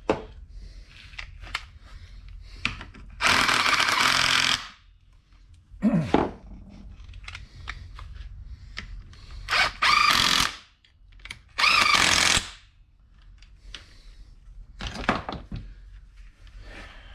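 Impact wrench in short bursts, running bolts down into a Muncie four-speed transmission housing. There are five bursts; the longest lasts about a second and a half, about three seconds in. Quieter clatter of the tool and sockets comes between them.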